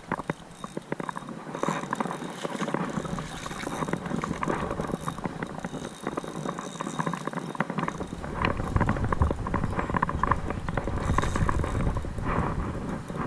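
Ultralight spinning reel ticking rapidly while a smallmouth bass is fought in the creek current.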